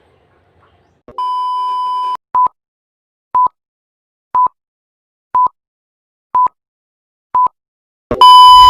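Electronic beep countdown at one steady high pitch: a tone lasting about a second, then six short beeps a second apart, then a louder long beep near the end.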